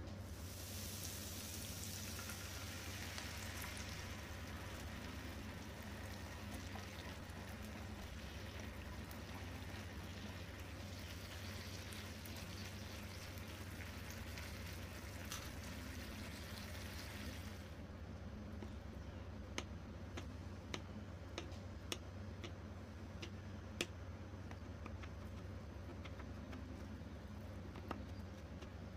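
Tomato liquid poured into a hot pan of liver and peppers, then simmering with a steady sizzling hiss as the food is stirred with a spatula. About two-thirds of the way in, this gives way to a knife slicing raw potato on a wooden cutting board: a series of separate sharp taps. A steady low hum lies underneath.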